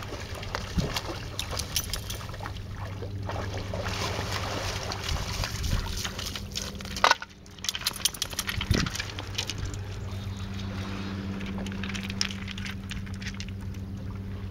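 Water splashing and sloshing as an Australian shepherd swims and wades ashore, then scattered clicks and crunches of paws on beach pebbles, over a steady low hum. A sharp knock about halfway through.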